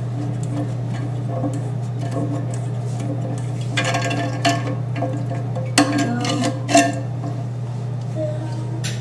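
Clinks and knocks of a toilet's old flush handle and lever arm being worked free and handled against the ceramic tank, in two short clusters about four and six seconds in, over a steady low hum.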